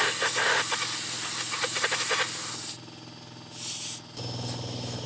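Compressed air blasting from an air-hose nozzle into a hole drilled in concrete, a loud hiss clearing out the drilling dust, which stops a little under three seconds in; a second short blast follows about a second later. Near the end a steady motor hum starts up.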